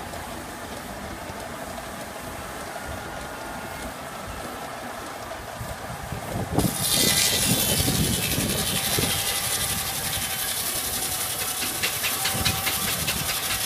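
Belt-driven circular saw bench running steadily; about six and a half seconds in, the large blade bites into a log, and a sudden loud hiss of sawing with a fast ticking texture starts and carries on.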